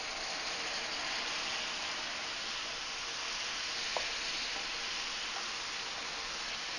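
Chicken broth poured into a hot stainless skillet of browned rice, bacon and onions, hitting the pan with a steady sizzle as it boils off into steam: the pan being deglazed. A single light tap of the wooden spoon on the pan comes about four seconds in.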